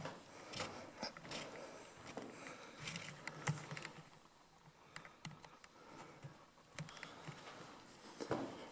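Footsteps walking over a carpeted floor strewn with grit and debris, a soft thump and a light click or crunch with each step.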